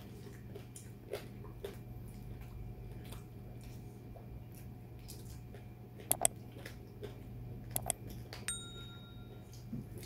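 Faint eating by hand: fingers picking food off banana leaves and chewing, as scattered soft clicks and smacks over a steady low hum. A few sharper clicks come a little past halfway, and near the end a click with a short ringing clink.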